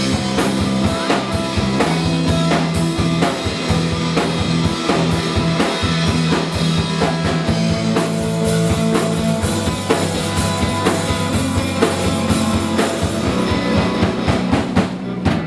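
Instrumental band music with drum kit, bass and guitar playing a steady beat, the drums dropping out near the end.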